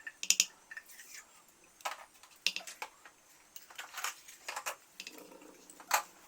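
Kitchen utensils clinking and knocking: a spoon tapping and scraping against a pan and container as ghee goes into the pan, in a series of irregular sharp clinks.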